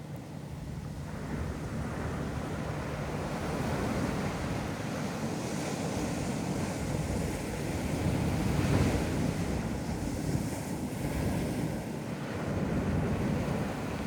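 Ocean waves washing onto a beach, the surf swelling and easing every few seconds, loudest about two-thirds of the way through, with some wind buffeting the microphone.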